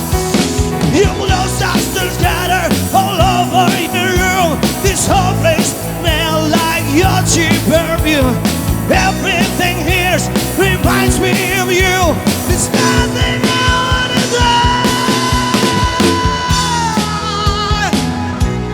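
Live rock band playing an instrumental passage, with a lead line that bends and wavers in pitch over steady drums and bass. About two-thirds of the way through, a long high note is held for a few seconds.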